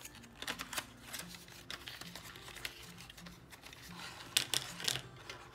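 A paperboard box of plastic edible-ink markers being handled and opened, its flap rustling and scraping, then the pens sliding out and clicking against each other and the table, with the sharpest clicks a little past four seconds in.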